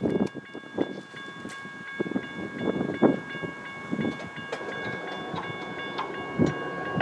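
Distant approaching train's locomotive air horn sounding a long, steady chord of several notes, with wind gusts buffeting the microphone.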